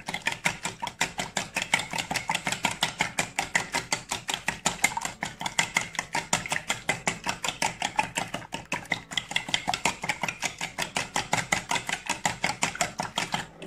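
A metal electric-mixer beater used by hand as a whisk, beating eggs and sugar in a bowl. It makes a fast, even clicking against the bowl at about six strokes a second, breaking off briefly near the end.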